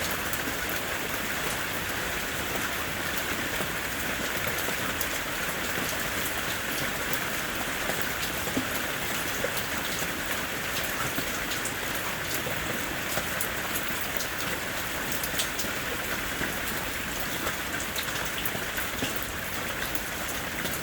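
Steady rain falling, an even hiss with fine scattered patter of drops on surfaces.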